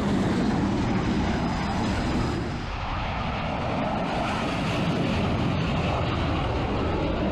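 Dassault Rafale M fighter's twin jet engines running at full power during a catapult launch from a carrier deck: a steady, loud jet roar.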